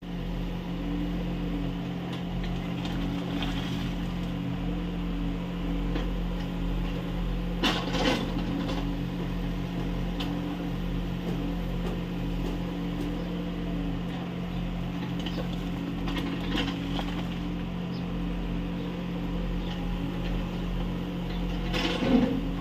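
Kubota U30 mini excavator's diesel engine running steadily while it digs earth. Short sharp knocks come about 8 seconds in and again near the end.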